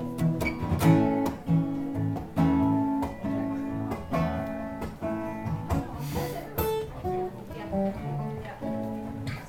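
Acoustic guitar strummed in chords, with a steady pulse of strokes.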